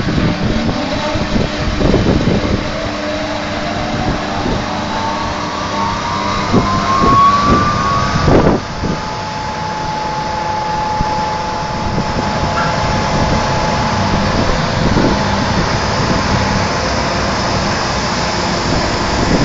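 Machinery running with a steady din: a whine rises in pitch over several seconds, then holds a steady tone, with scattered knocks and clanks throughout.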